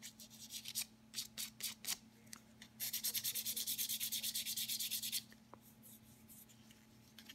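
Small piece of 500-grit sandpaper rubbed by hand along the edge of a stripped wooden revolver grip: a few scattered strokes, then about two seconds of quick back-and-forth sanding strokes, about ten a second, that stop abruptly. It is light smoothing of flat spots and chatter marks in the bare wood.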